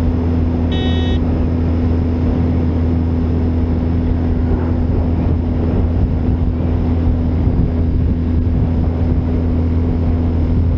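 BMW R1250GS's 1254 cc boxer twin running steadily at almost 5,000 rpm in first gear at about 50 km/h, with the exhaust flapper valve almost fully open.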